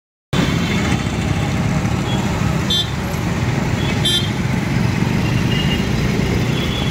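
Busy city road traffic noise from a moving two-wheeler, with two short vehicle horn toots about three and four seconds in.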